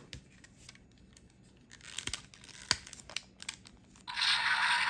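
Sharp plastic clicks from a DX Kamen Rider Blades toy, the Suiseiken Nagare sword and Lion Senki Wonder Ride Book, being handled and set. About four seconds in, the toy's speaker starts a loud, harsh transformation sound effect.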